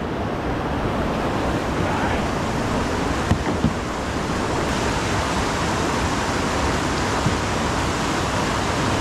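Whitewater rapid rushing steadily, with a couple of brief knocks about three and a half seconds in.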